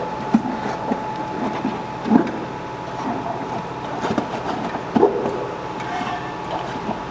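An 18-inch heavy-duty rubber inner tube being pushed by hand inside a dirt bike tire: scattered soft thumps and rubbing, the strongest about 2 and 5 seconds in, over a steady hum with a faint high tone.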